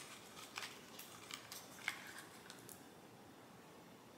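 Faint handling of a small perfume sample box being opened by hand: a few soft clicks and rustles of the packaging, stopping after about three seconds.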